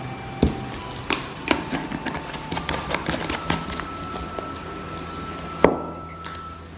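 Metal spoon clicking and knocking as spice powder is spooned and shaken over chopped tomatoes in a bowl: a few louder knocks in the first two seconds, a run of quick light clicks, then one sharp knock about five and a half seconds in.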